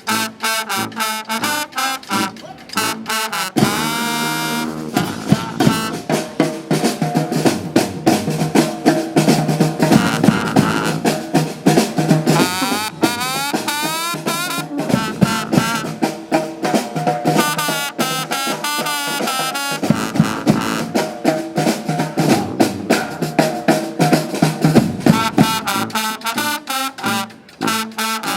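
Live street band playing: horns carrying the tune over a busy snare and bass drum beat, with some horn slides up and down.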